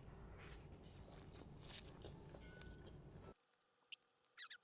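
Faint chewing of a big mouthful of food, with soft clicks from the mouth. About three seconds in it drops to dead silence, broken only by a few short clicks.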